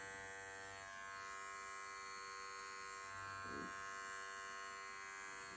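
Wahl Bravura 5-in-1 dog grooming clipper running with a steady electric buzz as its blade trims stray hairs along a dog's ear.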